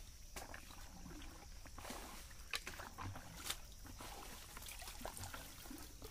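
Shallow muddy water splashing and sloshing as bare feet wade and hands grope through it, in irregular small splashes with a couple of sharper ones near the middle.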